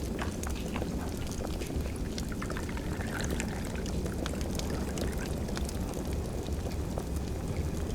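Wood fire crackling, with scattered sharp pops and ticks over a steady low rumble.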